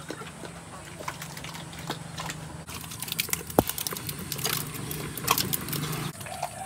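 A pig eating bran mash from a concrete trough: irregular small wet clicks and smacks, coming thicker in the second half.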